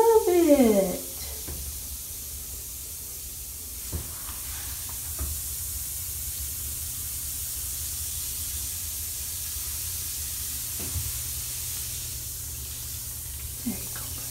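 A Lush Shooting Star bath bomb fizzing as it dissolves in a tub of bathwater: a steady soft hiss, with a few faint taps.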